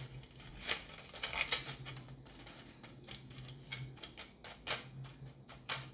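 Small irregular clicks and taps of plastic candy-kit parts being handled and set against a plastic tray, over a low steady hum.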